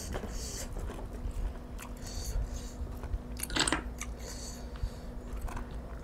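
A person chewing food close to the microphone, with soft crunches and wet mouth sounds.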